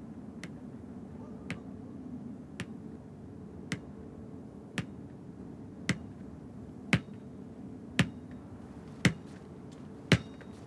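Sharp percussive clicks from a film score, evenly spaced about once a second, growing steadily louder over a faint steady low hum.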